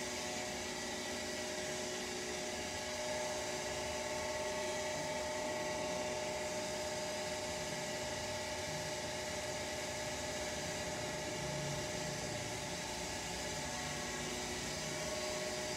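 A steady mechanical hum with several held tones over an even hiss, unchanging throughout.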